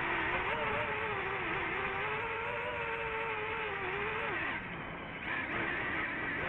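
Racing-drone propeller motors whining, the pitch wandering with the throttle. The pitch drops off sharply about four and a half seconds in, then climbs back up a second later as the throttle comes back on.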